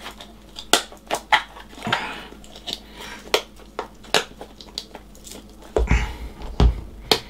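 Hands handling rubber RC truck tyres on a wooden tabletop: scattered sharp clicks and short rubbing noises, with a few low thumps about six seconds in as a tyre is pressed down on the table.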